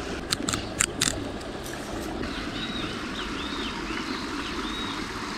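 Steady rush of a stream's running water, with a few sharp clicks in the first second and a small bird's short chirping notes repeated faintly through the middle.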